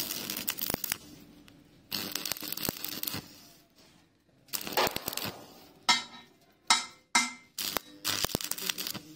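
Stick (arc) welding on thin steel pipe: the arc crackles and sizzles in repeated short bursts, going out between them as the welder strikes and breaks the arc again and again. This stitching technique builds up the bead over a gap without burning through the light-walled pipe.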